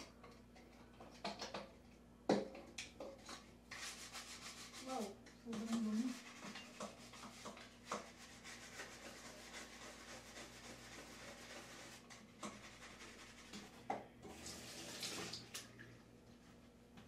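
Scrubbing with a cleaning brush: a rough rubbing noise broken by scattered knocks and clicks.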